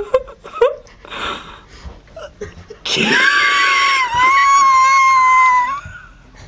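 A young person's loud, high-pitched scream held for about three seconds, starting about halfway in; the pitch wavers at first, dips once, then holds steady until it stops. A few faint knocks and murmurs come before it.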